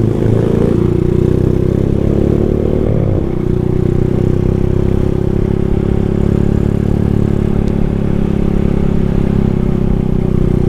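Single-cylinder Honda Tiger motorcycle engine under way, heard from the bike itself. The revs climb, drop with a gear change about three seconds in, then hold steady at cruising speed.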